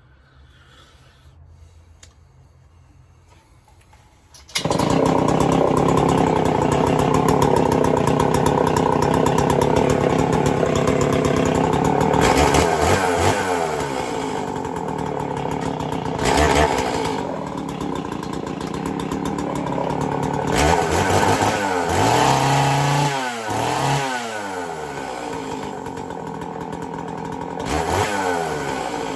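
Homelite 410 two-stroke chainsaw starting about four and a half seconds in, then running and being revved up and down several times on its newly fitted Stihl MS660 intake boot.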